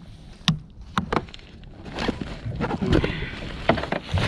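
Handling noise aboard a fishing kayak: several sharp knocks on the hull and gear over a wash of water and movement that grows busier in the second half.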